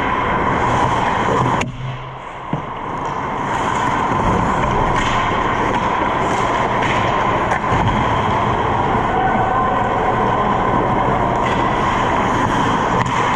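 Steady loud rushing noise of an ice rink during a hockey game, with a few sharp clacks from play. The noise dips briefly about a second and a half in.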